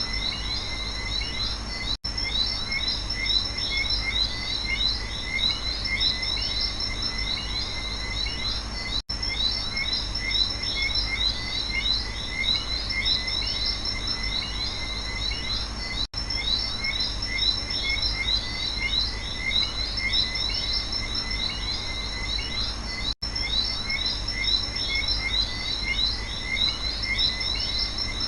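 Night chorus of frogs and insects: dense, overlapping high chirps and trills over a steady low hum. The sound drops out for an instant about every seven seconds, as a short recording loops.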